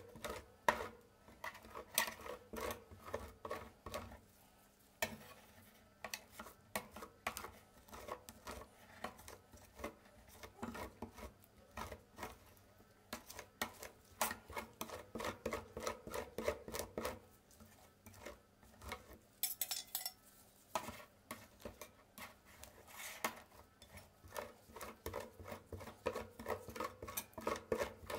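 Steel spatulas tapping and scraping on the stainless-steel cold plate of a rolled ice cream machine, spreading and smoothing a thin layer of ice cream mixture in quick repeated strokes, with a few short pauses.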